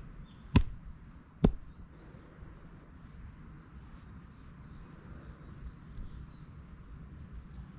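Insects trilling in a steady, high, even drone, with two sharp knocks about a second apart near the start.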